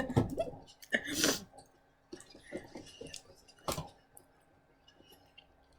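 Close-miked eating: a short, loud mouth sound about a second in, then soft wet chewing and small lip clicks, with a sharp click just before four seconds.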